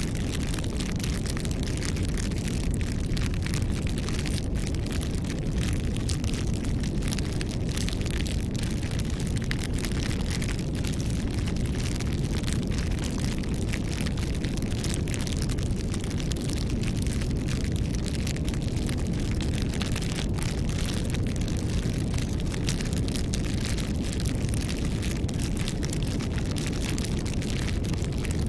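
Campfire burning: a steady low rumble of flames with many small crackles and pops scattered throughout.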